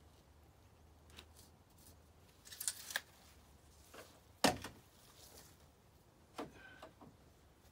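Scattered handling noises and footsteps over dry leaves as building materials are moved by hand, with a brief rustle about three seconds in and one sharp knock about four and a half seconds in.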